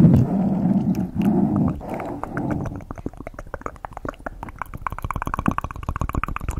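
A fluffy makeup brush is swept over a foam microphone windscreen right at the mic. It starts as low, swelling rubbing strokes, and about two seconds in gives way to a rapid, fine crackling that runs on.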